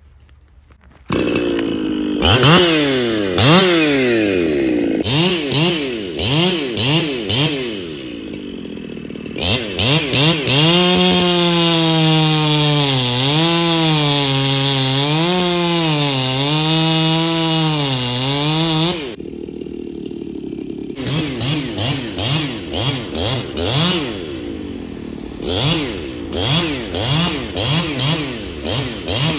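Two-stroke chainsaw with a freshly sharpened chain, revving up and down several times, then held at full throttle for about nine seconds with the pitch dipping and recovering as it cuts, then dropping back and blipped repeatedly.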